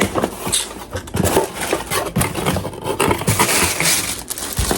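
Product packaging being handled and opened by hand: irregular scrapes, clicks and crinkling of cardboard and plastic, thickest near the end.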